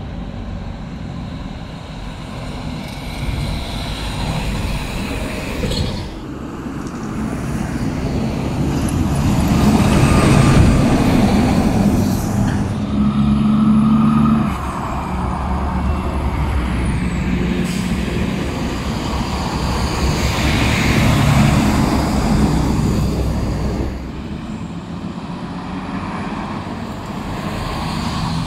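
Heavy diesel dump trucks hauling snow driving past one after another in city traffic, their engine rumble and tyre noise swelling as each one goes by, loudest several times.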